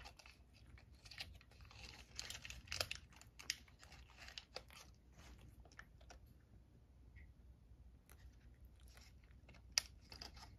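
A cat crunching and chewing a dry Churu Bits treat: a run of faint, crisp crunches, thick over the first few seconds and thinning out after that.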